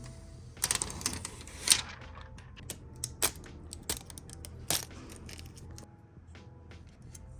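Hands working on PC parts: about a second of plastic-like rustling, then a run of separate sharp clicks and taps.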